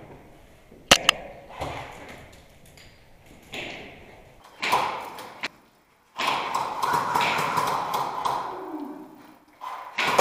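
HPA-powered airsoft G3 rifle firing one shot, a sharp double snap about a second in, followed by scattered soft knocks and, later, a few seconds of rustling noise.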